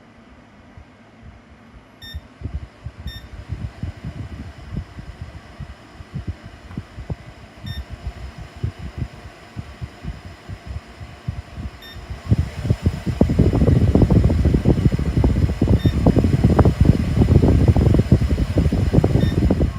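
Air from a U ULTTY CR021 bladeless tower fan blowing against the microphone as an uneven, rumbling flutter, with six short electronic beeps from its controls as settings are changed. The airflow becomes much stronger about twelve seconds in, just after a beep.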